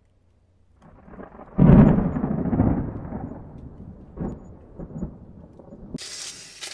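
Cinematic intro sound effect: a rumble that swells, then a heavy boom about one and a half seconds in, fading out in a rumble over the next couple of seconds, with two softer thumps later. Near the end it cuts to the crinkly rustle of pastry trimmings being handled.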